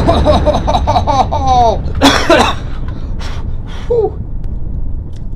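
A person coughing and gasping: a quick run of short, falling, strained vocal sounds, then a harsh cough about two seconds in, and fainter splutters after.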